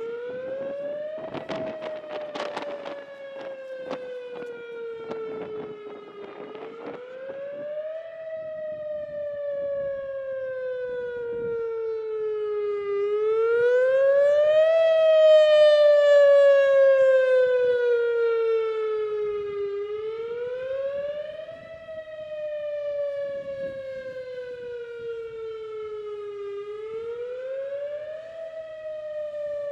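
Whelen WS 2000R electronic outdoor warning siren sounding a wail: a loud tone rising quickly and falling slowly, repeating about every seven seconds, swelling louder and fading again around the middle. Gusty noise on the microphone runs over the first several seconds.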